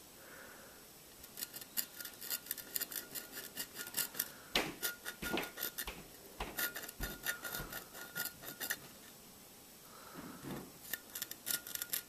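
Tip of a pocket-knife blade scratching and carving into the surface of a bottle: quiet, rapid scratching strokes from about a second in to about nine seconds, a pause, then more scratching near the end.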